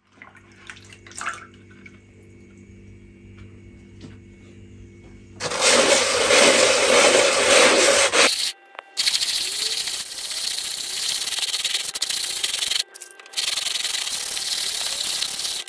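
Fine-grit sandpaper on a hand-held sanding block rubbed hard back and forth over an oil painting on canvas, wearing away the surface layers of paint. The scratchy rasping starts about five seconds in and runs on with two brief breaks; before it there is only a low hum and a few light clicks.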